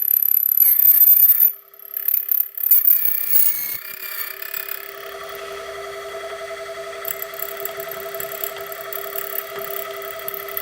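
GL320 key machine's cutter wheel cutting a key blank. Loud, high-pitched metal screeching comes in bursts for about the first four seconds. Then a steady motor whine follows as the cutter runs through the bottoms of the valleys with no metal coming off, a sign the cut is finished.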